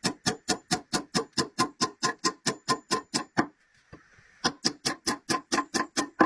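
Background music of quickly plucked notes in an even rhythm, about five a second, breaking off for about a second past the middle and then picking up again.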